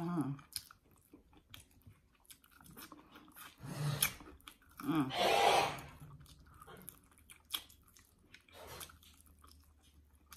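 Close-up chewing and biting of crispy fried chicken, with small crunches and wet mouth clicks, and two louder breath-like sounds about four and five seconds in.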